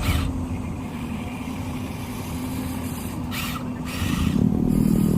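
Radio-controlled construction truck running with a steady motor hum, growing louder and rougher about four seconds in.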